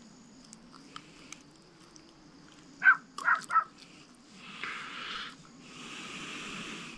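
An animal calls three times in quick succession about three seconds in. Two stretches of soft rushing noise follow near the end.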